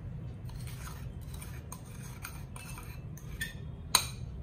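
A small fluted bowl tapping and clinking against the rim of a steel mixing bowl as ground sugar is poured and knocked out onto flour: scattered light taps, with one sharp clink about four seconds in. A low steady hum runs underneath.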